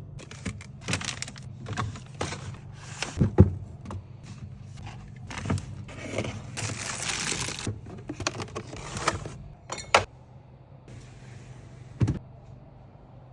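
Food containers and packaging being handled and set down: many light clicks and knocks, a stretch of rustling packaging about two thirds of the way through, then a single knock near the end, over a steady low hum.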